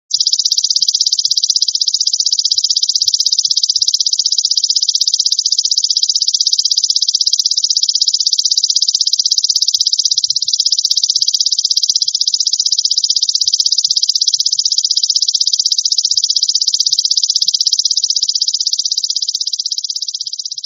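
Belalang emas (golden grasshopper) insect song: a continuous, very fast high-pitched buzzing trill, steady throughout, that cuts off suddenly near the end.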